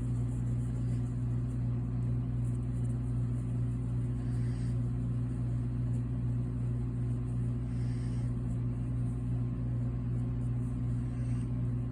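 A steady low mechanical hum, unchanging throughout, with two faint brief rustles around the middle.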